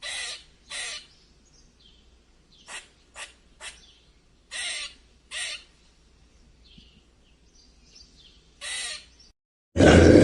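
A bird giving short, harsh calls, mostly in pairs with a quick run of three, with faint high chirps from other birds between them. Near the end it cuts abruptly to a loud, steady rushing noise.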